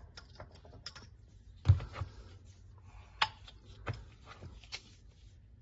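Sparse small clicks and knocks of steel tooling being handled as a gauge pin is set in place on the chuck, with one sharper knock about a second and a half in.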